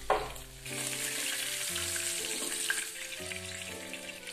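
Oil sizzling steadily as flour-battered pindang fish fry in a pan, after a short knock right at the start. Soft background music plays underneath.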